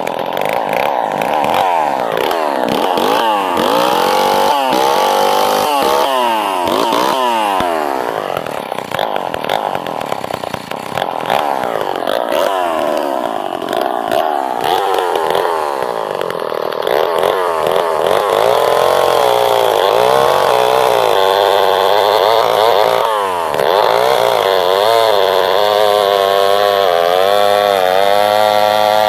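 Vintage Lombard two-stroke chainsaw running, the throttle blipped so the engine speed swings up and down repeatedly, then held at high revs fairly steadily through the second half with a wavering pitch near the end.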